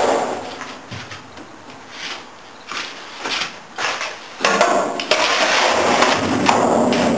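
Shovel scraping and scooping along the steel floor of a garbage truck body: a few short strokes in the first four seconds, then a longer, louder scrape from about four and a half seconds in.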